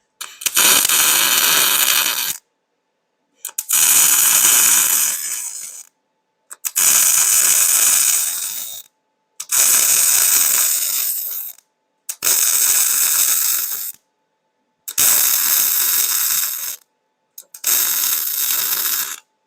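Arc welding on steel, crackling in six bursts of about two seconds each, every burst starting and stopping abruptly.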